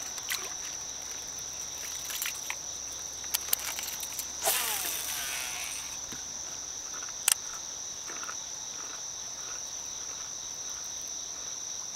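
Steady high-pitched insect chorus. It carries a few faint clicks, a short rush of noise about four and a half seconds in, and a sharp knock about seven seconds in.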